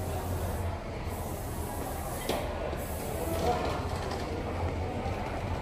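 Airport terminal concourse ambience: a steady low hum with faint, distant voices of travellers in a large hard-floored hall.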